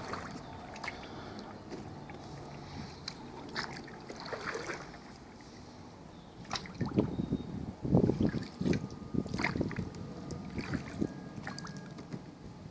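Kayak paddle strokes dipping and splashing in river water, with a louder run of splashy strokes in the middle.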